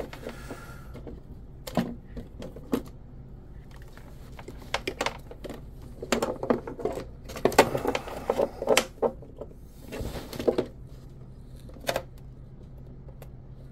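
Hands working wires and small parts inside an RC boat hull: scattered clicks, taps and rustling, busiest from about six to nine seconds in, over a faint steady hum.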